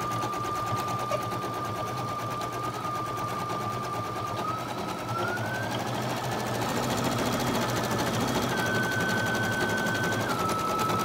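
Brother Innov-is NQ3600D embroidery machine stitching out a design: a rapid, steady needle chatter over a motor whine that rises in pitch about halfway through and drops back near the end.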